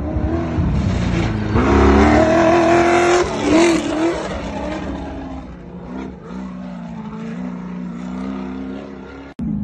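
Off-road race truck's engine revving hard as it passes close on a dirt track, the pitch climbing to a peak and then dropping as it goes by. A quieter, steadier race engine follows, cut off abruptly near the end.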